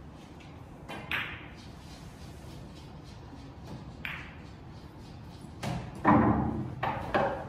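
Pool balls on a table: a sharp click as the cue strikes the cue ball about a second in, then a ringing ball-on-ball click about four seconds in as it meets the red 3-ball. Near the end come the loudest sounds, several knocks and a deep thud as the object ball drops into a pocket.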